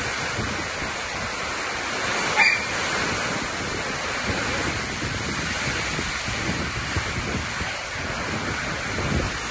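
Heavy rain and strong wind of a thunderstorm, a steady rushing noise heard from under a corrugated metal roof, with one brief sharp sound about two and a half seconds in.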